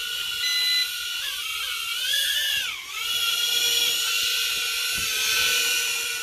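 Holyton HS330 mini quadcopter's propellers whining in flight. The pitch rises and falls as the throttle changes, with a quick dip a little under three seconds in.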